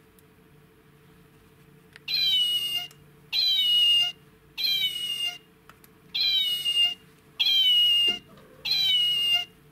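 Plush kitten toy's press-activated sound unit playing a recorded cat meow six times in a row, about one a second, starting about two seconds in. Each meow is the same falling call, set off by squeezing the 'PRESS' patch on the toy's crochet pouch.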